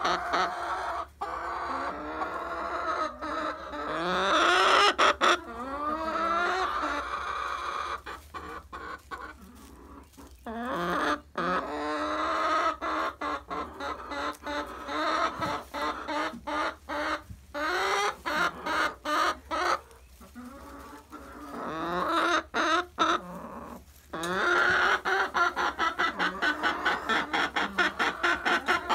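Chickens clucking and calling almost without pause, with a run of quick, even clucks near the end.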